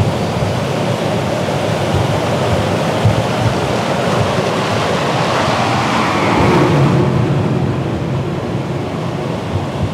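Steady rushing roar of airflow and aircraft engines in flight, as heard from an air-to-air camera aircraft. It swells a little about six to seven seconds in.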